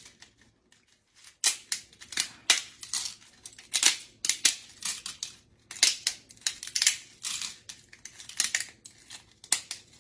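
Dry oven-ready lasagna noodles snapped into small pieces by hand: a run of sharp cracks coming in quick, irregular clusters.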